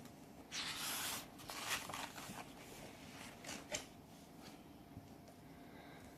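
Paper rustling as a book page is turned: a rush about half a second in, then a few short crackles.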